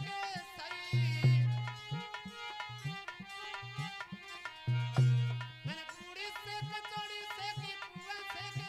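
Instrumental interlude of a Hindi devotional bhajan: an electronic keyboard plays a melody with gliding notes over a steady hand-drum rhythm, with deep bass drum strokes about a second in and again about five seconds in.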